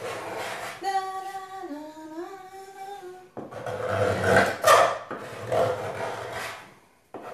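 A woman's voice sings a short phrase of a few held notes: the pitch steps down, then slides back up. This is followed by a louder, rough noisy stretch of a few seconds.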